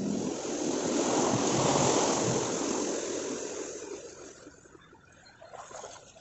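A car driving through deep floodwater on a road, its tyres pushing and spraying water in a rushing wash that swells and then fades away as it passes and moves off.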